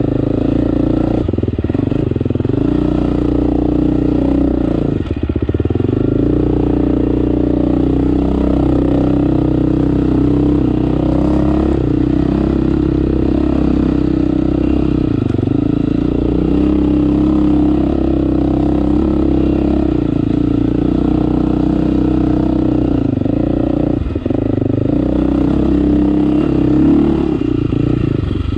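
2018 KTM 350 XC-F dirt bike's single-cylinder four-stroke engine running steadily under load at moderate revs, the revs dipping briefly a few times as the throttle eases.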